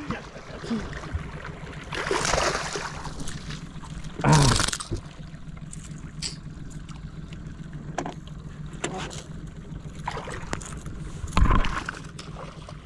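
Water splashing as a hooked lukanani (peacock bass) fights at the surface on the line, with a short loud splash about four seconds in and another just before it is lifted dripping from the water near the end, over a steady low hum.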